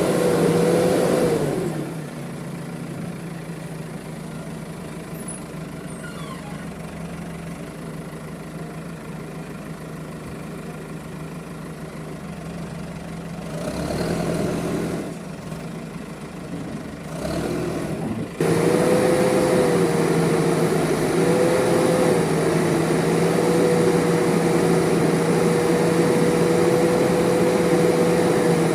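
JCB backhoe loader's diesel engine running at high revs, then dropping to a lower, quieter run after a second or two. The revs rise briefly twice in the middle, then jump suddenly back up and hold high and steady, wavering slightly, for the last ten seconds.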